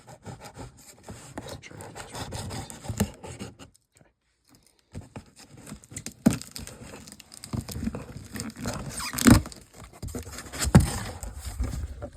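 Objects being handled and moved: irregular scraping, rustling and a string of sharp knocks, the loudest two about nine and eleven seconds in, with a sudden break to silence about four seconds in.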